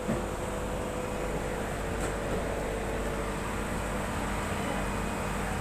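Steady mechanical hum with a hiss from the pumps and running water of live-seafood tanks, with a brief bump just at the start.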